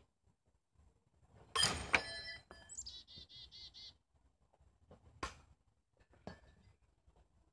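Steel throwing knives striking the target. A loud metallic hit about one and a half seconds in rings on briefly, and two sharp, short hits follow near five and six seconds. Between them a rapid run of high chirps lasts about a second.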